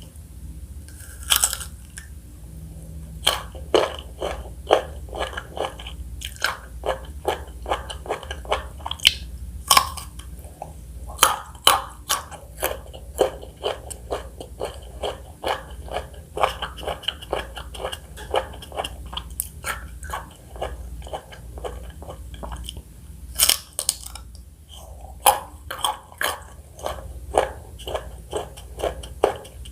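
Close-up chewing and biting of fresh fruit: sharp, wet crunches at about two to three a second, with a few louder bites about a second in, around ten seconds and near twenty-four seconds.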